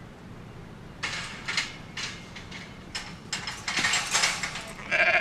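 Galvanised steel tubular farm gate rattling and clanking as its latch is worked, a run of irregular metallic clatters over about four seconds. A sheep bleats right at the end.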